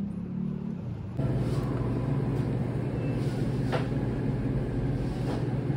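Steady low machine hum that sets in louder about a second in, with a couple of light clicks.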